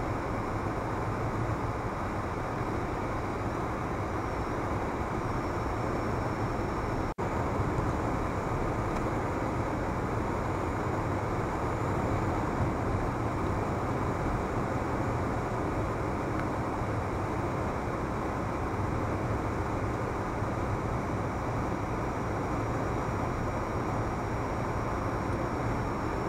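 Steady road and engine noise of a car cruising at highway speed, heard from inside the cabin through a dashcam microphone. The sound cuts out for an instant about seven seconds in.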